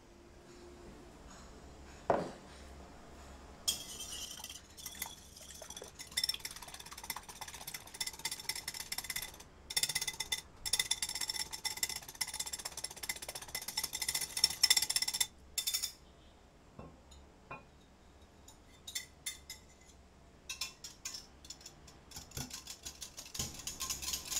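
Egg whites being whisked by hand in a ceramic bowl: a fast, continuous run of clinking strokes lasting about ten seconds. After a quieter pause with a few ticks, a wire whisk clinks against the inside of a glass jug of cream in quicker, scattered taps near the end.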